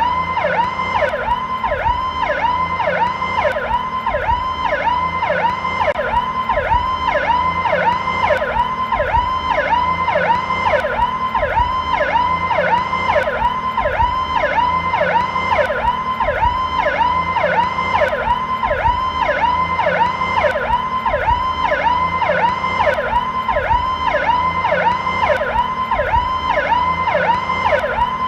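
American police electronic siren sounding its Powercall tone in a slowed version: a pitch that sweeps up and down between a lower and a higher note, repeating rapidly and evenly without a break.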